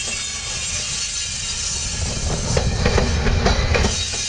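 Freight train of covered hopper cars passing close by: a steady rumble of the wheels on the rails, with a run of clacks over the rail joints about three seconds in.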